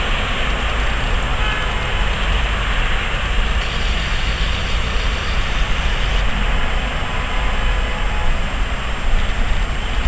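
Blizzard wind buffeting the camera's microphone: a loud, steady rushing noise with a deep rumble.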